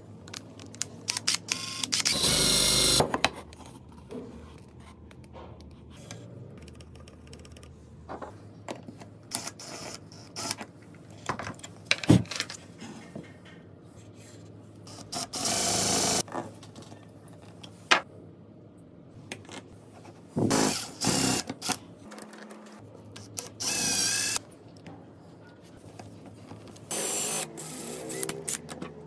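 Bosch cordless drill spinning a spring-loaded self-centering hinge drill bit, whirring in about five short bursts as it bores pilot holes for hinge screws, with clicks and knocks of handling between the bursts.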